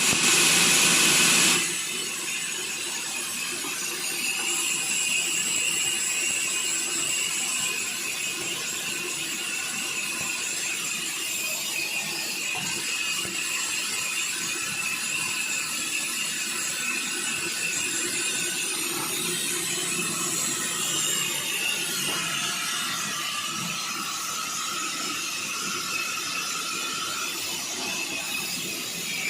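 Sawmill saw running steadily with a high whine, opening with a loud noisy rush for about the first second and a half.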